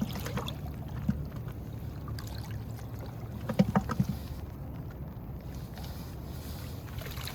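Shallow river water rushing and sloshing, with a short burst of splashes about halfway through as water is stirred by a dip net or by someone wading.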